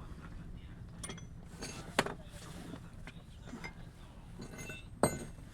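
Metal clicks and clinks of tools and brake parts being handled at a car's front wheel brake, with two sharp knocks, one about two seconds in and a louder one near the end.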